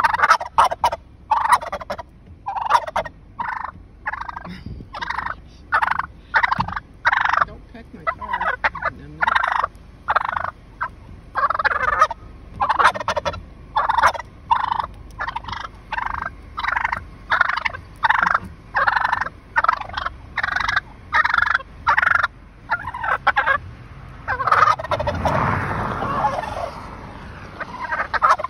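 A male wild turkey gobbling over and over at close range: short gobbles in quick succession, about one a second, with a longer, fuller call near the end.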